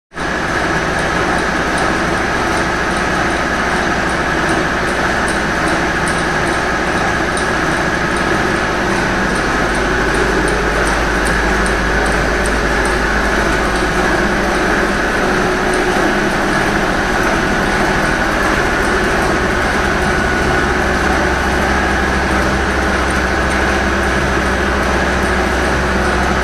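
Electric-motor-driven soil grinding machine running: a loud, steady mechanical din from the belt drive and crusher, with a constant high whine over a low hum.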